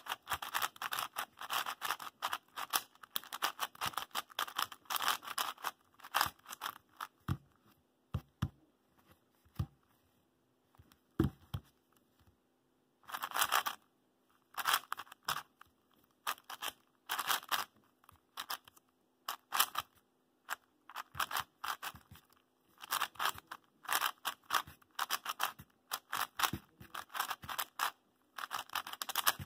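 YuXin Little Magic 4x4 M magnetic plastic speedcube being turned fast during a solve: bursts of quick scraping, clicking layer turns broken by short pauses, with a longer, quieter stretch of a few soft knocks about a third of the way in. The turning is sandy, a scratchiness the owner has not yet got rid of.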